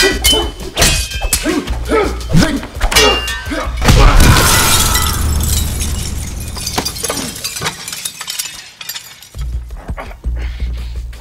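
A fast run of punch and strike impacts, then about four seconds in a loud crash of a window breaking, with glass shards showering and fading over the next couple of seconds. A low music drone runs underneath.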